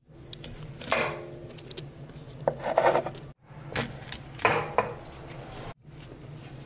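A large kitchen knife cutting through broccoli stems on a wooden cutting board, about four separate cuts.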